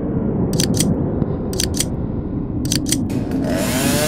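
A low steady rumble with sharp paired clicks about once a second. Near the end a chainsaw revs up loudly, its pitch rising and falling.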